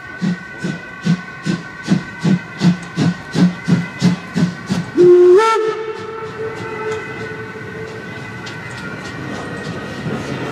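Two-cylinder steam locomotive 01 150 working in with an even chuff from its exhaust, about two and a half beats a second and growing louder. About halfway through it sounds a loud steam whistle blast that steps up in pitch, and the note lingers while the chuffing fades as the engine comes by.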